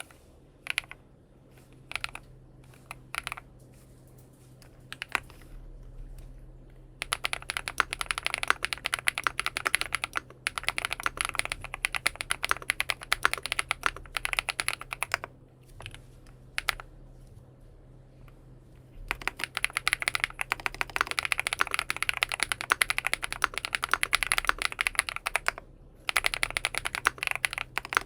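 XINMENG M71 aluminium-case mechanical keyboard with BSUN Bunny switches being typed on. A few separate keystrokes come first, then fast continuous typing in two long runs, with a pause of a few seconds between them.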